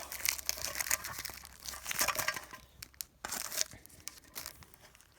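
Packaging being worked open by hand: irregular crinkling, rustling and tearing, busiest over the first three or four seconds and dying away near the end.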